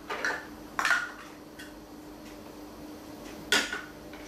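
Hard plastic toy kitchen pieces clacking against each other and the table: a few sharp clacks, one just after the start, a louder one about a second in and another near the end, over a faint steady hum.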